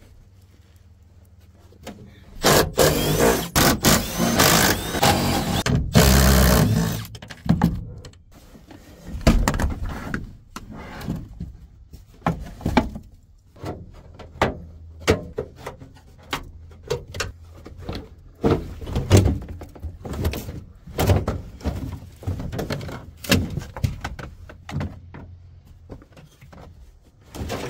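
Knocks and clunks of parts being pulled out of a car's interior during a strip-down. Dense loud rattling noise runs from about two seconds in to about seven seconds in, then comes a long run of irregular separate knocks.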